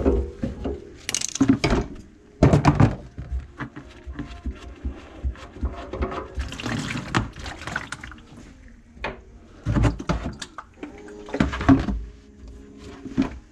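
Water splashing from the opened drain pipe of a grease-clogged kitchen sink into a plastic bucket, amid irregular knocks and clatter of handling under the sink.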